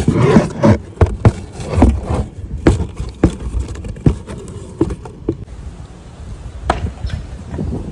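A run of irregular knocks and thumps, closely spaced in the first few seconds and then sparser, with one louder knock near the end.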